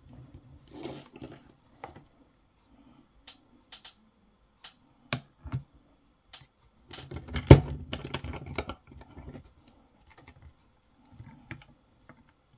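Small clicks and knocks from handling a metal Sunshine screen-separator fixture: its sliding clamps moved and a phone set down between them. Scattered single clicks, with a busier clatter about seven to nine seconds in that holds the loudest knock.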